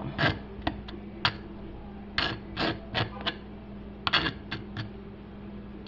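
Kitchen handling noises: a string of short scrapes and rustles in three quick clusters as cuts of meat are handled and packed for the freezer, over a steady low hum.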